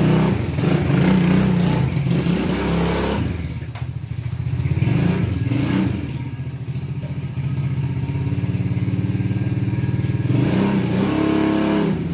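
ATV engine running, its revs rising and falling a few times.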